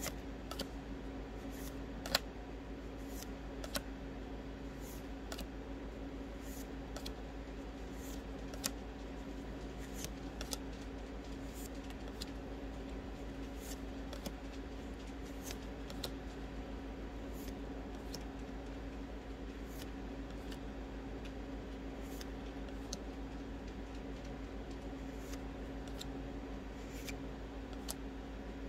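Magic: The Gathering cards being moved one at a time from the front to the back of a hand-held stack, each card giving a light click or snap, irregularly about one or two a second. A steady low hum runs underneath.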